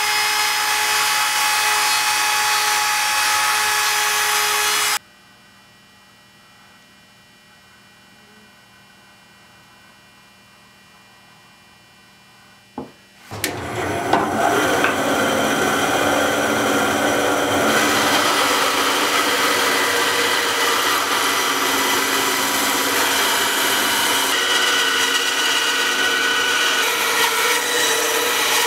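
A compact trim router cuts along the edge of a douglas fir board, then cuts off suddenly about five seconds in. After a stretch of faint steady hum and a click, a band saw starts and cuts through a douglas fir board for the rest of the time.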